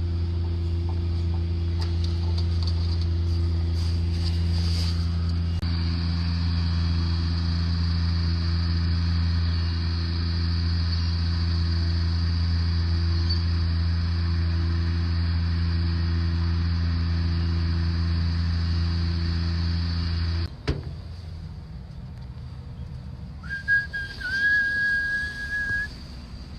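A steady low machine hum that cuts off abruptly with a click about twenty seconds in, then a single steady high whistled note lasting a couple of seconds near the end.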